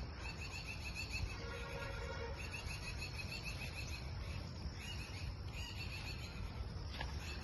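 Outdoor rural ambience: a steady low rumble with a high chirping repeating in the background, and a faint brief steady tone about two seconds in.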